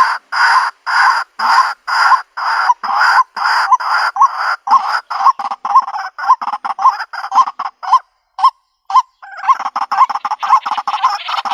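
White-breasted waterhen calling over and over, a loud, evenly repeated call at about two a second that quickens and crowds together, with a short break about 8 seconds in.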